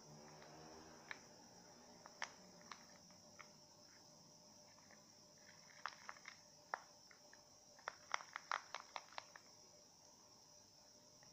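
Faint, scattered clicks and taps of a stirring utensil against a small plastic cup as thick slime mixture is stirred, with a quick run of clicks about eight seconds in.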